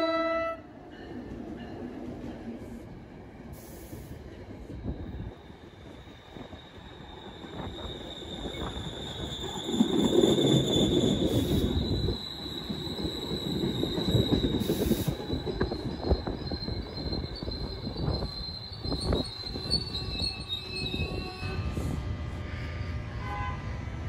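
NJ Transit electric-locomotive-hauled passenger train arriving at a station, its horn cutting off about half a second in. The coaches then rumble and click past on the rails, loudest about ten seconds in, with a high steady squeal as the train slows.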